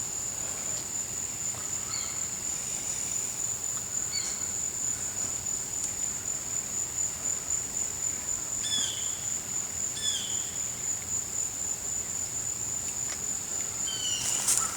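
A steady, high-pitched insect trill runs without a break, with a bird giving a short downward chirp about five times.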